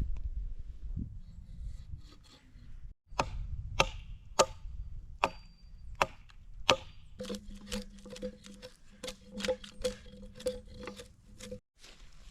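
Axe chopping into a log: sharp strikes about one every two-thirds of a second, then quicker, lighter strikes over a steady low hum that cuts off suddenly near the end.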